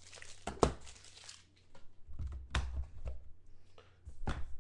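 A trading card being handled and put into a clear plastic card case: rustling plastic with three sharp clicks spaced about two seconds apart.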